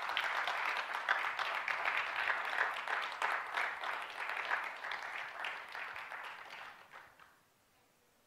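Audience applauding, dying away about seven seconds in.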